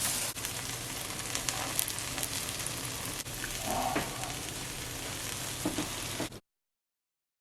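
Pancakes frying in a pan: a steady sizzling hiss, with a few faint knocks. It cuts off abruptly a little over six seconds in.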